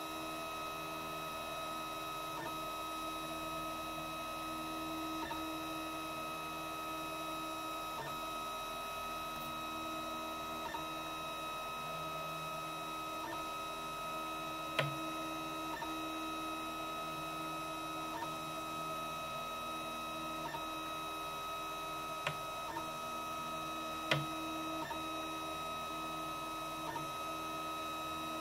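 Monoprice Maker Ultimate 3D printer printing with a steady hum, broken by a sharp click about every two and a half seconds and two louder clicks, about halfway and again near the end: the clicking fault the owner is reporting.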